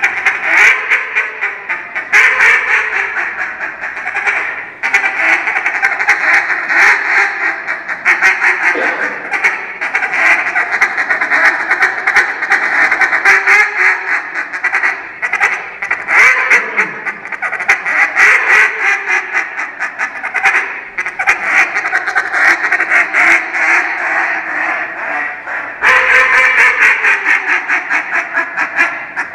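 Hand-held duck call blown in a competition calling routine, imitating live ducks: a near-continuous run of loud, rapid quacks and chatter, with brief breaks about two and five seconds in and shortly before the end.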